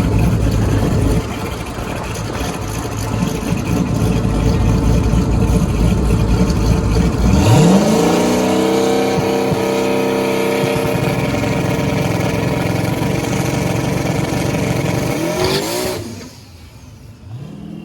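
Drag race car engine running hard at full throttle, rough and loud at first. About seven seconds in its pitch sweeps sharply up and holds high and steady for several seconds, then drops away as the throttle closes near the end.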